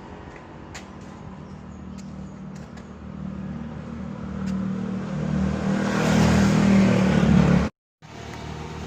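A motor vehicle engine running with a low hum, with a few light clicks early on, growing louder over the last few seconds and then cutting off suddenly.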